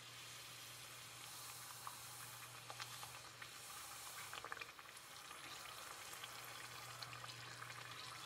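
Thin disc of bánh tiêu dough deep-frying in hot oil: a faint, even sizzle with small crackles and pops, picking up about a second in. A steady low hum runs underneath.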